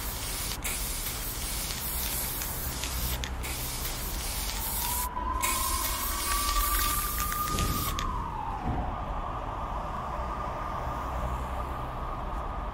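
Aerosol spray-paint can hissing in spurts with short breaks, over a slowly rising tone. About eight seconds in the hiss stops and the tone falls away, leaving a steady high hum over a low rumble.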